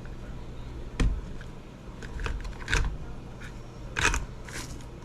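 A few separate clicks and knocks of plastic and metal RC car parts being handled and fitted together by hand, spaced irregularly about a second apart, over a low steady hum.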